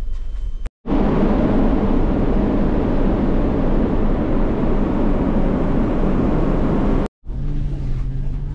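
Steady, loud rushing noise on a ferry's open deck at sea, with a deep rumble beneath: wind on the microphone and the churning wake. It starts abruptly about a second in and cuts off abruptly near the end, giving way to a quieter steady hum of the ship's interior.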